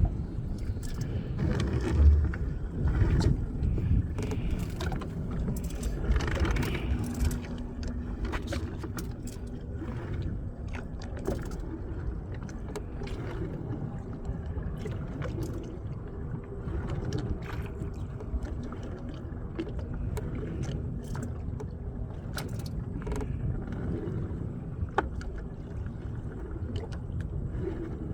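Steady low rumble of wind and water around a small open fishing boat, with scattered knocks and clicks as a fish pot is hauled in.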